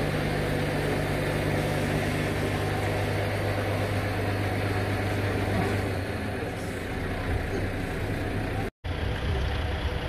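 A heavy vehicle engine idling steadily with a low hum, which eases off about six seconds in. The sound cuts out for a moment near the end.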